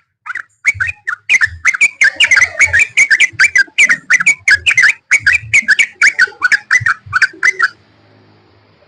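Yellow-vented bulbul (trucukan) singing a rapid run of bubbly, whistled notes that stops abruptly near the end.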